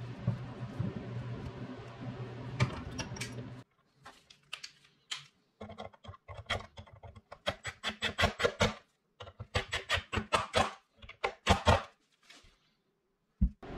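Cordless DeWalt drill-driver setting screws through a drawer pull into a wooden drawer front, heard as runs of sharp clicks several to the second.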